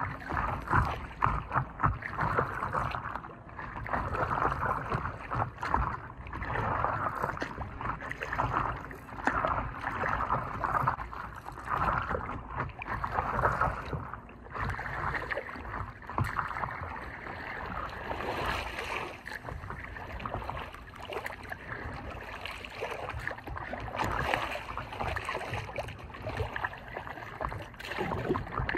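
Stand-up paddleboard on a lake: a paddle dipping in uneven strokes and water splashing and lapping close against the board.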